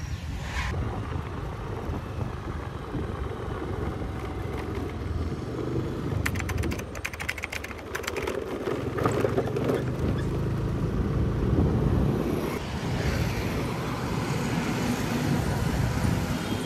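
Motorbike ride: engine running with road and wind noise and traffic passing, and a quick run of sharp clicks about six to seven seconds in.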